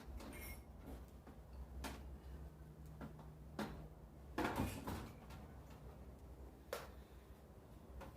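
Sporadic small clicks and knocks of handling, about five of them, the loudest a short cluster a little before the middle, over a steady low hum.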